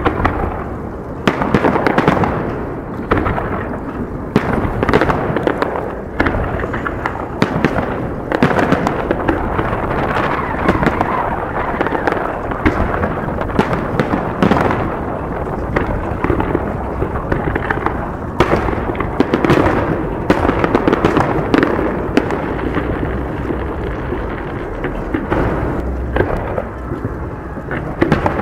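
Aerial fireworks display: shells bursting in quick succession, many sharp bangs over a continuous rumble.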